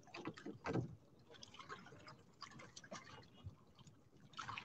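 Faint water lapping and dripping against the side of a small wooden outrigger boat, with scattered light ticks and knocks, one a little louder just under a second in.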